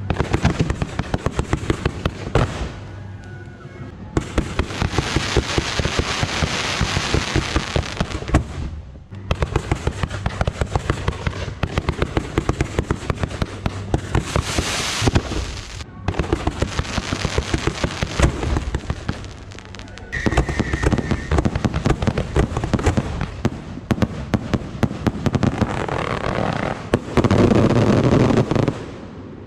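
Fireworks going off in quick succession: dense, rapid bangs and crackles from aerial bursts and ground fountains. The volley drops off briefly a few times and is loudest near the end.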